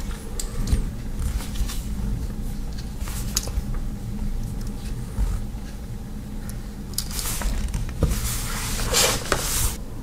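Handling noise: scattered light clicks, then two longer rustling, scraping bursts in the last three seconds.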